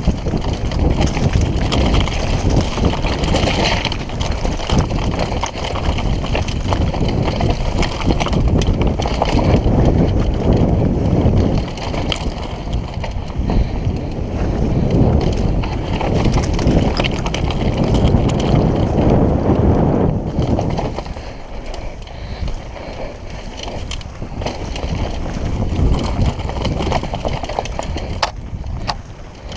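Downhill mountain bike riding fast over a rocky trail: wind buffeting the action camera's microphone, with the constant clatter and rattle of tyres and bike over loose rock. The rattling is heaviest over the first two-thirds and eases as the trail smooths out.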